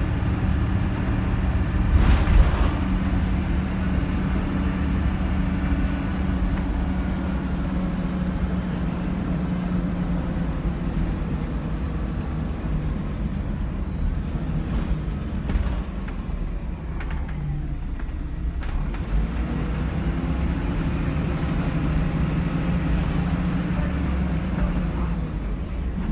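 Cabin sound of a MAN 14.240 Alexander Dennis Enviro200 single-deck bus under way: its six-cylinder diesel engine hums steadily under the road rumble. A loud knock comes about two seconds in, and past the middle the engine note drops away for a few seconds before it comes back.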